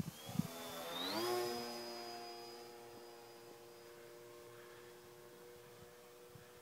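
Radio-controlled model airplane's motor and propeller flying by: the pitch rises over about the first second, when it is loudest, then holds steady while it fades as the plane flies away.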